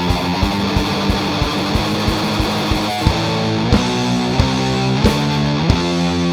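Heavily distorted electric guitar played through a Mantic Vitriol distortion pedal, with bass and drums, playing a heavy rock riff: sustained chords over a steady drum beat, changing about halfway through.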